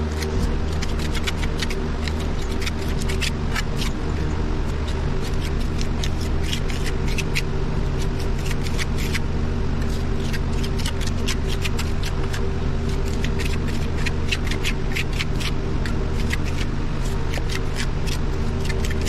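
Steel trowel scraping and tapping as mortar is scooped from a pan and pressed into a cracked concrete block joint: many short scrapes and clicks, irregular and continuous. Under it runs a steady low hum.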